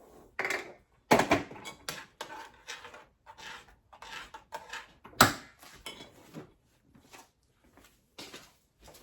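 Kitchen clatter of dishes and utensils while oatmeal is measured out: a run of irregular clinks and knocks, with two louder knocks about a second in and about five seconds in.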